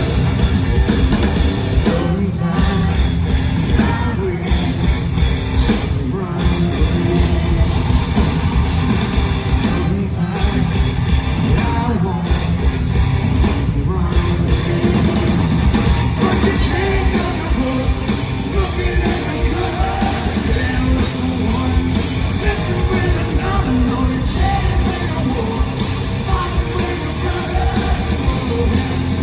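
Live hard rock band playing loud, with distorted electric guitars, drums and vocals, heard from the arena floor. In the first half the band stops briefly every couple of seconds, stop-time style.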